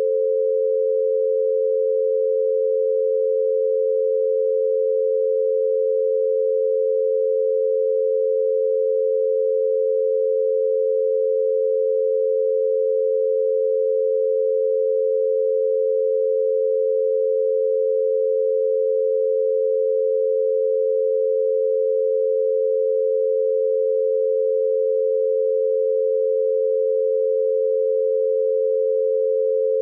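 An 88 Hz binaural beat: two steady pure tones close together in pitch near 500 Hz, one for each ear, held unchanged.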